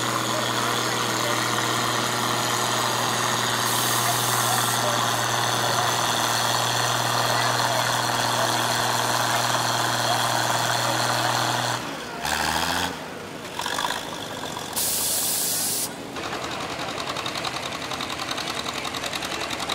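Cockshutt tractor engine running steadily under load while pulling a weight sled. About twelve seconds in the sound breaks off in several abrupt cuts, and then a John Deere two-cylinder tractor engine is heard running with a more uneven beat.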